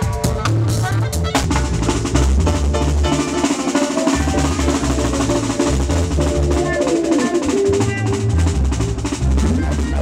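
Reggae band playing in a sound check: drum kit, a deep pulsing bass line and keyboards.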